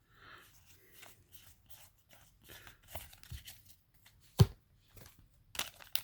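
Yu-Gi-Oh! trading cards being handled and slid over one another, faint, with a single sharp knock about four seconds in. Near the end comes the loud crinkle and tear of a foil booster pack being ripped open.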